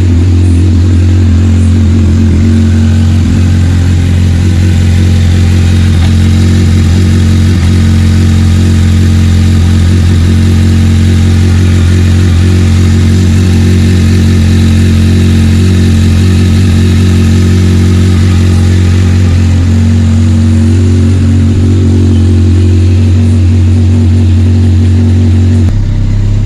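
Honda CBR1100XX inline-four engine idling steadily, freshly filled with new oil and with its oil pressure light out. It runs cleanly, without unusual noises or knocks.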